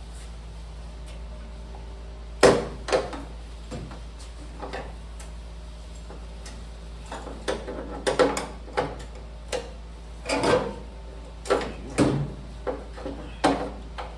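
Irregular knocks and clunks of the sheet-metal roll pan being handled and pushed into place on the pickup's rear, the loudest about two and a half seconds in and a busier run of them in the second half.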